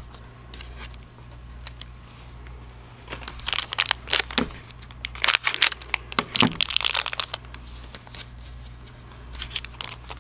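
Crinkling and rustling of a metallized foil anti-static bag being cut open and handled, in irregular spurts that are busiest through the middle and come again briefly near the end.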